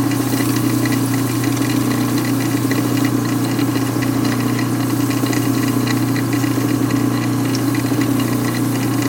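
Steady electric motor hum from a machine running while a piston is sanded with 1500-grit paper, with a fine rapid ticking on top.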